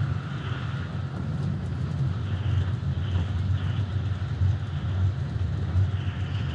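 Keikyu 1000-series commuter train running at speed, a steady low rumble of wheels on rail and running gear with faint ticks, heard from inside the leading car.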